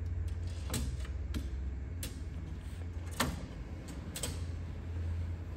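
Clicks and knocks from a cabinet and tray assembly being shifted by hand on its metal drawer slide, about five in all, the loudest about three seconds in, over a steady low hum.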